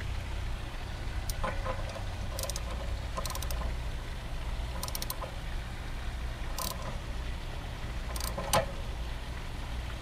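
Ratchet wrench with an anode-rod socket clicking in short runs of quick clicks, several times over, as a magnesium anode rod is tightened into an RV water heater tank; a louder single click or knock near the end. A steady low hum sits underneath.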